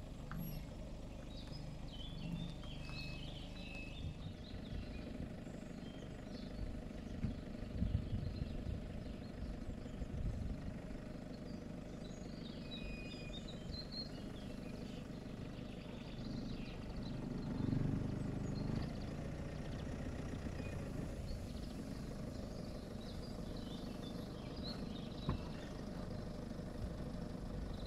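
White Peugeot van's engine running at low speed as it tows a caravan slowly across a grassy field, a steady low rumble that swells a little twice. Birds chirp faintly over it.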